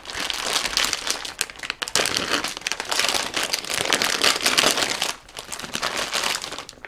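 Packaging crinkling and rustling as it is handled and opened, with a brief lull about five seconds in.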